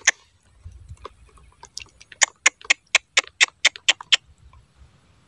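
A quick series of sharp clicks, sparse at first and then about four to five a second for about two seconds, stopping abruptly.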